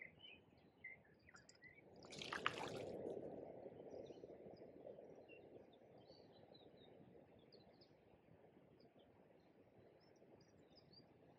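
A sudden splash in shallow river water about two seconds in, as the freshly caught barbel goes back into the water, followed by water sloshing that fades away over several seconds. Small birds chirp faintly throughout.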